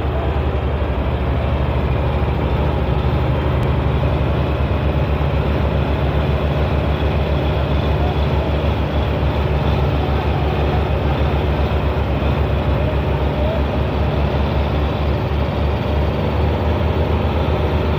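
Belarus 510 tractor's diesel engine running hard under heavy load as it pulls a loaded sugarcane trolley, a loud, steady, rapid low chug with no let-up.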